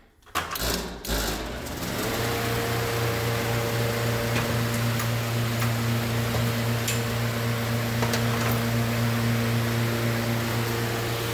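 Old New York Blower wall exhaust fan with aluminum blades, after a few knocks, starting up about two seconds in and then running steadily: a low motor hum with several steady tones above it.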